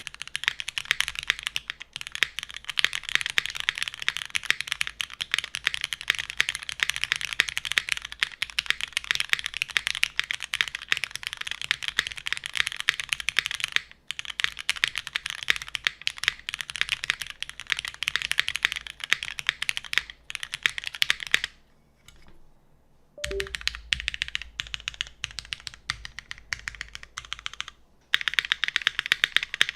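Custom mechanical keyboard with an aluminium plate, lubed Cherry MX Black linear switches and GMK keycaps being typed on fast and continuously: a dense stream of key clacks. Typing stops for about a second and a half around two-thirds of the way through, then picks up again.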